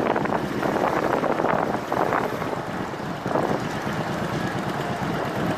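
Wind rushing over the microphone of a motorcycle-mounted camera, gusting unevenly, with the motorcycle's engine running underneath.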